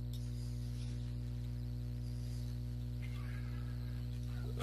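Steady low electrical hum with a stack of even overtones, unchanged throughout: mains hum on the recording.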